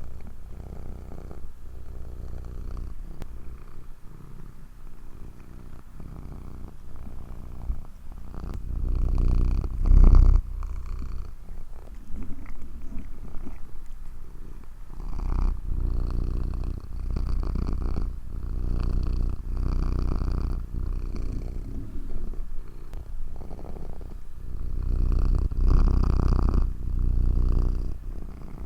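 Domestic cat purring, a low rumble that swells louder for a few seconds at a time, several times over.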